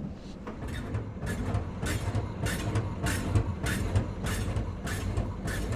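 Automatic bread-slicing machine cutting a loaf: a steady motor hum with a sharp, rhythmic clack a little under twice a second.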